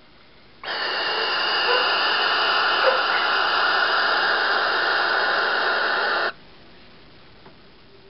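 Barn owl giving one long hiss of about five and a half seconds that starts and stops abruptly.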